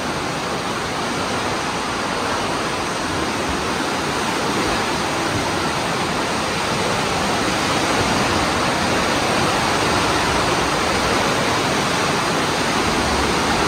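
Steady rush of fast-flowing river water: the Aare racing through a narrow rock gorge.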